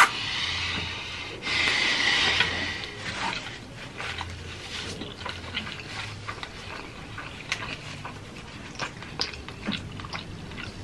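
Instant ramen noodles being slurped, two long slurps in the first few seconds, followed by chewing and mouth sounds with scattered small clicks.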